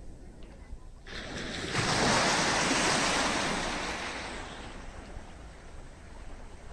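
A sea wave breaking and washing up the beach. The rush builds about a second in, peaks, and dies away over the next few seconds, over a low rumble of wind on the microphone.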